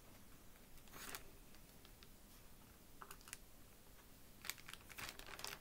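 Faint, scattered clicks and rustles of small plastic Perler fuse beads being picked from a zip-lock bag and set onto a pegboard, a few at a time.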